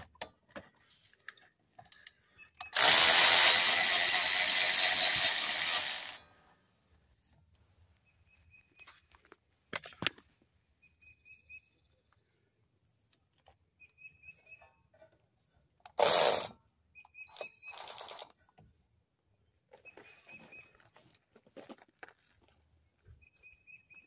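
Cordless electric ratchet running on a brake caliper bolt: one long run of about three seconds, then a short burst and a couple more brief runs later on. The bolt is spinning in place rather than coming out, because the nut on its back side turns with it.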